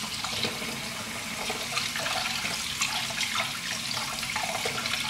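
Kitchen tap running steadily, water splashing as a makeup brush is rinsed under the stream to flush out the last of the baby shampoo.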